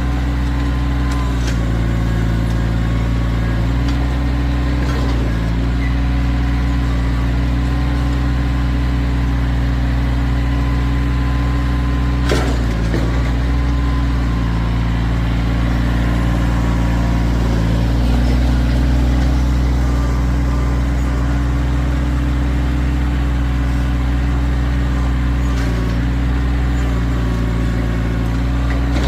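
Kioti tractor's diesel engine running steadily, its note dipping and shifting a few times as it works, with one sharp knock about twelve seconds in.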